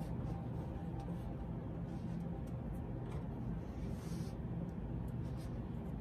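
Steady low room hum with a few faint light taps and a brief soft brushing sound about four seconds in.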